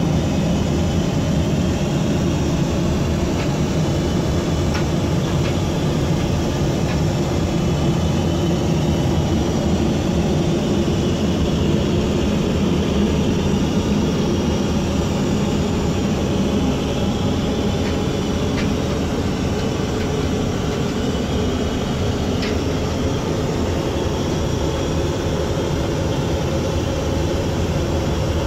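Steady cabin noise inside a Boeing 737-800: a low rumble and engine hum with several steady tones and a faint high whine, unchanging throughout, with a few faint ticks.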